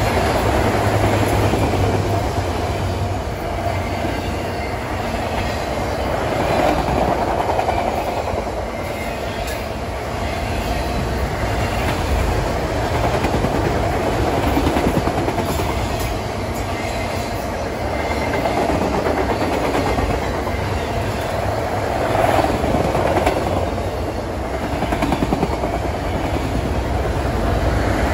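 Freight train of autorack cars rolling past at close range: a steady rumble of steel wheels on the rails with rhythmic clicking over rail joints. Its loudness swells and eases every several seconds as the cars go by.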